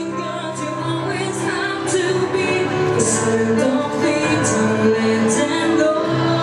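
A woman singing into a microphone over accompanying music, with a regular beat of cymbal-like hits.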